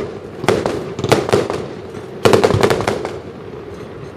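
Fireworks bursting: a run of sharp bangs and crackles, clustered about a second in and again just past two seconds, then dying down near the end.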